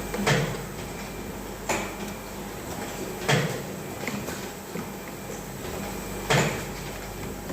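CNC spring-making machine running with a steady hum, with four sharp clacks at uneven intervals of one to three seconds.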